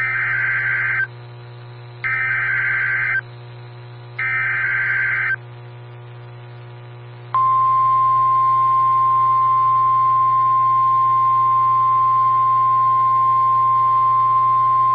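Emergency Alert System signal announcing a blizzard warning: three short bursts of the warbling SAME data header about two seconds apart, then, after a pause, one long steady single-pitch attention tone of the kind NOAA Weather Radio uses.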